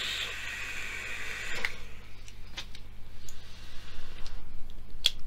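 A long drag on a dripper (RDA) vape: air drawn through the atomiser gives a steady airy hiss for about two seconds, then fades. Scattered small clicks and crackles follow, with a fainter breathy hiss as the vapour is blown out.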